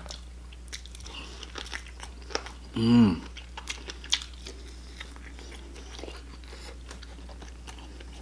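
Close-up mouth sounds of eating pork spare rib by hand: biting meat off the rib, chewing and lip smacking in many small wet clicks. A brief hummed 'mm' about three seconds in.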